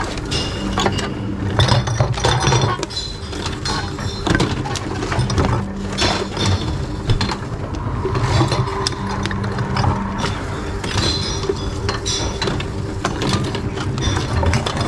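Reverse vending machines taking in bottles and cans: the intake motor hums in spurts of a couple of seconds as each container is drawn in, among many clicks and clinks of glass and cans.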